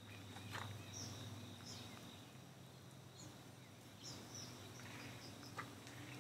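Faint outdoor ambience: birds giving short, high chirps every second or so over a low steady hum, with a couple of light clicks near the start and near the end.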